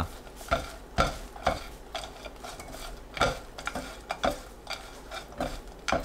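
Two silicone spatulas stirring and tossing dried anchovies in a sticky gochujang glaze in a nonstick pan. The spatulas make irregular soft clicks and scrapes against the pan, a few a second.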